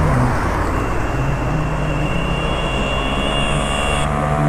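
Street traffic with a motor vehicle engine running close by, a steady low hum. A thin, high, steady tone joins about a second in and stops shortly before the end.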